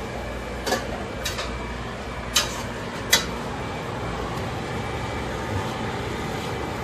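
Bacon, celery and garlic sizzling in olive oil in a saucepan, a steady hiss. There are four sharp clicks or knocks in the first three seconds.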